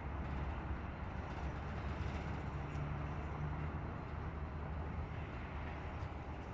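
Diesel freight locomotive engine running, a low steady rumble with a faint hum on top.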